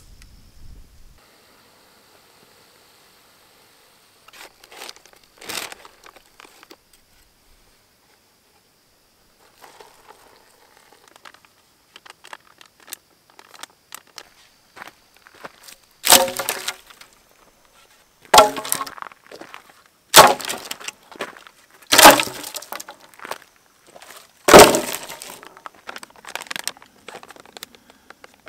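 Foil freeze-dried meal pouch handled up close: faint rustling, then about five sharp crackling crinkles roughly two seconds apart in the second half as the pouch is torn and worked open.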